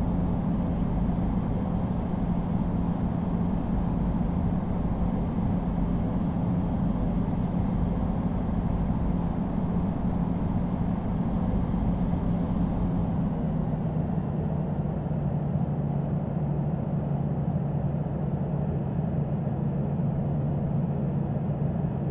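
Cabin noise inside a Boeing 787-9: a steady rushing roar of its Rolls-Royce Trent 1000 engines and airflow, with a low hum. A little past halfway, the faint high whine dies away and the hum drops slightly in pitch as the engines spool down.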